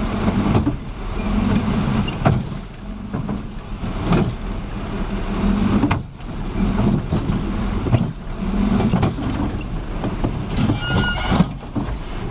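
Heavy truck or machinery engine running under load, with scattered knocks and clanks. The sound breaks off abruptly about six seconds in and again near the end. A short high tone sounds about eleven seconds in.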